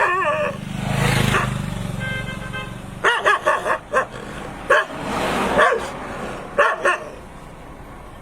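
A dog barking in short clusters of sharp barks, with gaps between them. A swell of rushing noise rises and fades about a second in, and again around the middle.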